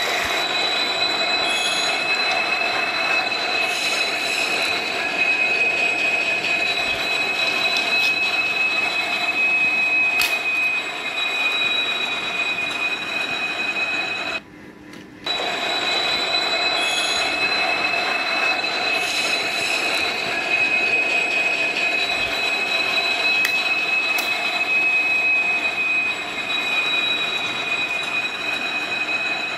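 Recorded railway train running with its wheels squealing, holding two steady high squealing tones over a constant rumble. It cuts out briefly about halfway through and starts over as a loop.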